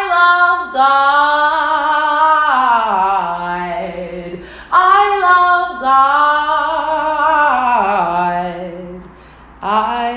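A woman singing unaccompanied in long drawn-out phrases. Two phrases, one starting near the start and one about five seconds in, each step down in pitch to a low held note. A third phrase begins just before the end.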